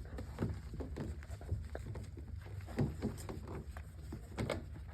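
Three-week-old bullherder puppies nursing: a run of short, irregular clicks and sucking sounds over a steady low rumble.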